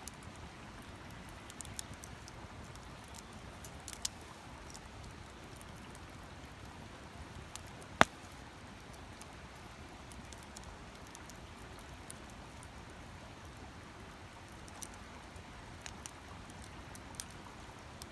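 Wood campfire crackling, with scattered small pops and one sharp, loud pop about eight seconds in.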